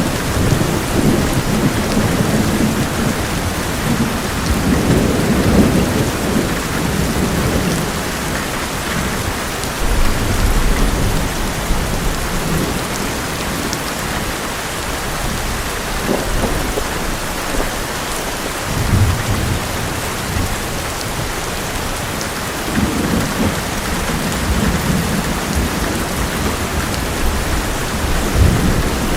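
Heavy rain drumming steadily on an old metal roof, with thunder rumbling and swelling several times.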